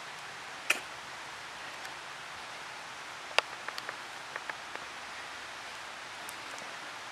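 Steady outdoor background hiss with a few short, sharp clicks: one about a second in, a louder one about three and a half seconds in, and a quick run of smaller ticks just after it.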